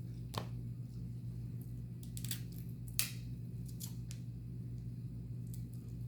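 Shellfish being eaten: a few short, sharp clicks and cracks as crab shells are broken open, the loudest about three seconds in, over a steady low hum.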